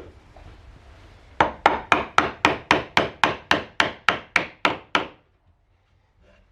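A hammer striking wood in a quick, even run of about fourteen blows, roughly four a second, that stops abruptly.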